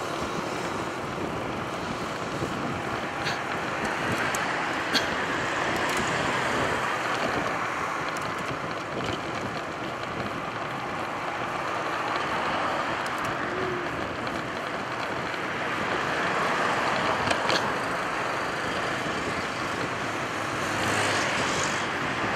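Steady road and traffic noise with wind rush, heard from a moving bicycle; the noise swells several times as cars go by.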